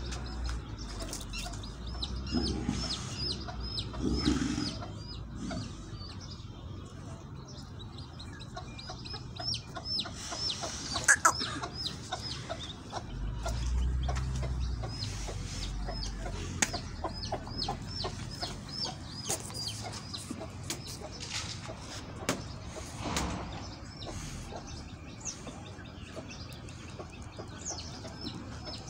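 Farmyard chickens clucking, with a small bird chirping over and over at a steady rate, and a couple of sharp knocks partway through.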